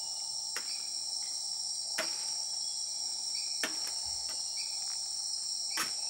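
Steady, high-pitched chorus of insects, unbroken throughout, with four brief sharp clicks scattered through it.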